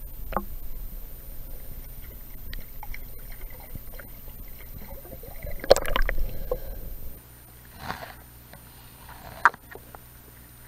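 Muffled stream water heard through a camera held underwater: a low rumble and gurgling with scattered knocks from handling, a louder burst of splashing about six seconds in. About seven seconds in the rumble drops away as the camera comes out of the water, leaving a few sharp clicks.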